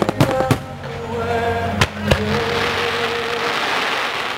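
Fireworks going off over music: several sharp shell bangs in the first two seconds, then a dense crackling hiss of falling stars building up.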